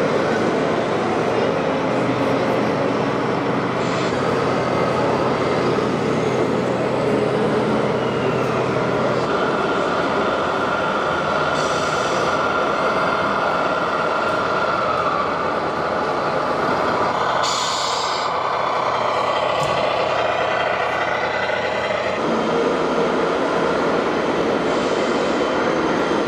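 Radio-controlled model trucks running with steady engine-like noise, broken by two short air-brake-style hisses, one about twelve seconds in and another about five seconds later.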